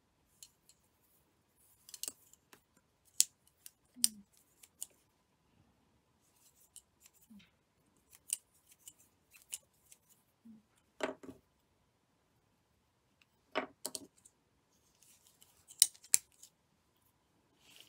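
Irregular small sharp clicks and light knocks, a dozen or so, from plastic tatting shuttles and thread being handled while lace is tatted, with a few faint short rubs of thread being drawn tight.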